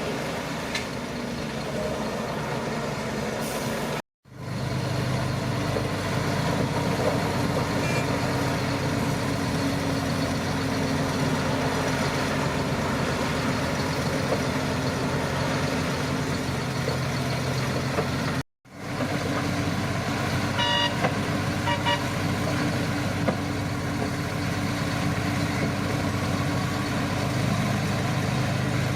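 Shantui crawler bulldozer's diesel engine running steadily under load, with a few short high beeps about 21 to 22 seconds in. The sound cuts out abruptly to silence twice, around 4 seconds and 18 seconds in.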